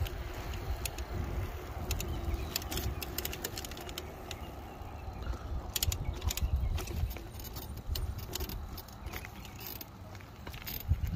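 Wind rumbling on the microphone of a moving small electric ride, with quick rattling clicks from the ride's frame and loose parts as it rolls over cracked pavement and a railroad crossing. The clicks come thickest about six seconds in.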